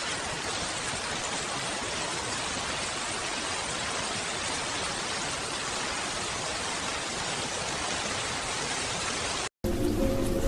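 Steady rain falling, an even hiss with no separate drops standing out, which cuts off abruptly near the end as music comes in.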